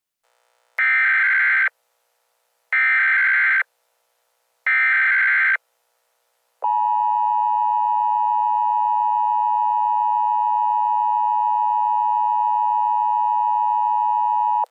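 Emergency Alert System tones: three buzzing bursts of SAME header data, each about a second long, then the EAS attention signal, a shrill steady two-note tone held for about eight seconds. Together they mark the start of a new alert message.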